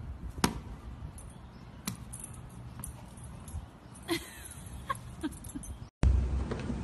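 A few sharp, widely spaced taps of a ball bouncing on pavement, with a few short high yips from a small dog near the end.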